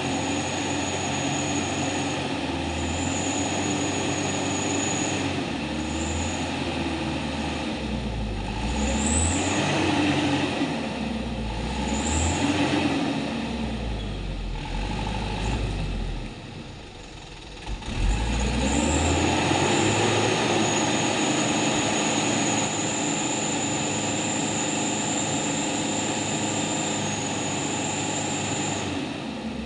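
Truck engine revving up and down repeatedly under load, with a high steady whine above it; it drops back for a couple of seconds past the middle, then picks up sharply again.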